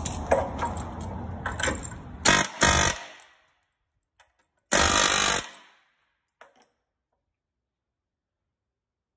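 A power drill boring holes through the rusty steel frame rail of a Toyota Land Cruiser FJ60, running in short loud bursts. The first few seconds are noisy with clicks and two bursts, then the sound cuts off abruptly, and one more burst of just under a second comes near the middle.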